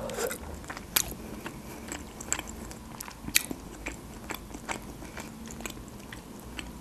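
A person chewing a mouthful of stuffed cabbage roll close to the microphone, with scattered short wet mouth clicks and smacks.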